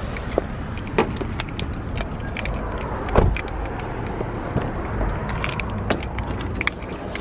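Light metallic jingling and clicking of keys and chain hardware, carried while walking beside a parked car, over a low steady rumble; a dull thump about three seconds in, and the clicks of a car door being opened near the end.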